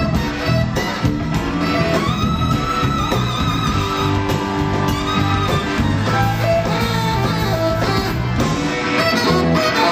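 Live rock band playing, with electric guitar, drums and saxophone; long held lead notes ring out over the band.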